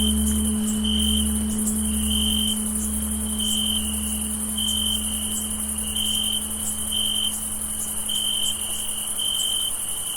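Crickets chirping, one short chirp about every second over a steady high trill, while the low hum of a tolled bell slowly fades beneath them.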